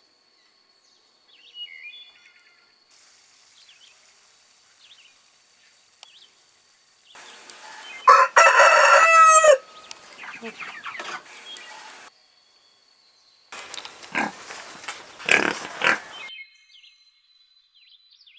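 Rooster crowing once loudly about halfway through, the call ending in a falling note, over small birds chirping and a thin steady high insect trill; another loud burst of calls comes a few seconds later.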